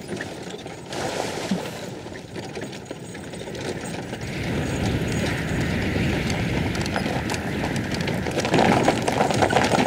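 Horses' hooves clip-clopping as a horse-drawn carriage travels along, louder over the second half.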